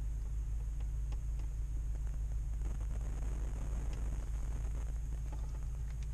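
Ford F-350 Super Duty pickup's engine idling, a steady low rumble heard from inside the cab, with a few faint clicks.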